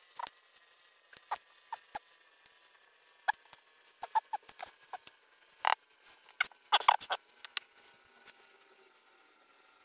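Small, sharp metallic clicks and ticks from hand work on a DOM euro cylinder lock, coming irregularly, with a burst of louder clicks a little past the middle.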